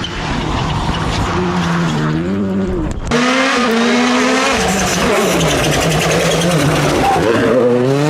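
Rally car engine revving hard, its pitch rising and falling with throttle and gear changes, over a haze of tyre and gravel noise. The sound changes abruptly about three seconds in to another stretch of the same kind of engine running.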